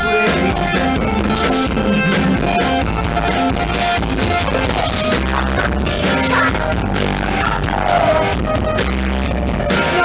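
Live rock band playing: electric guitar, bass and drum kit, with a woman singing lead. Recorded through a camera microphone, so the sound is dull and poor, with no treble above the mid range.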